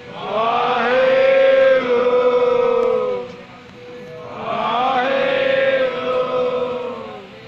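Sikh devotees chanting together in two long, drawn-out phrases of about three seconds each, with a short pause between.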